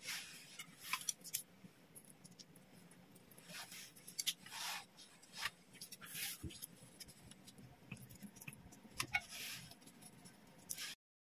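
Thin square dumpling wrappers rustling and crinkling under the fingers as siomai are folded around meat filling, with scattered light taps and clicks of handling. The sound stops abruptly near the end.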